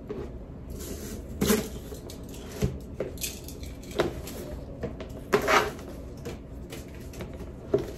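Cardboard gift box and its ribbon being handled: a few short rustles and scrapes as the ribbon is untied and pulled off and the box is turned, the longest a little past halfway.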